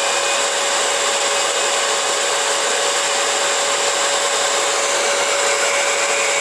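AIIYME 3200 W high-velocity dog dryer (blower) running steadily: a rush of air with a constant motor whine over it.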